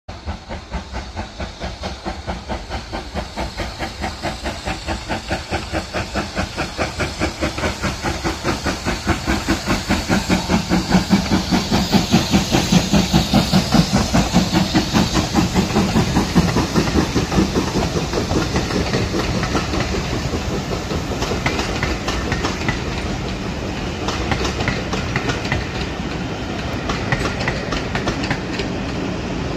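BR Standard Class 4MT 4-6-0 steam locomotive 75014 Braveheart working past under steam: its rapid, even exhaust beats grow louder as it approaches and are loudest about halfway through as it passes. After that the beats give way to the steadier rumble and clickety-clack of the coaches' wheels on the track.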